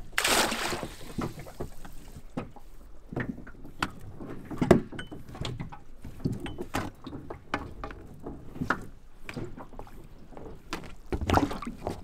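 A wire prawn trap dropped over the side of an inflatable dinghy, splashing into the water just after the start, followed by its rope paying out over the tube with scattered small knocks and rubbing.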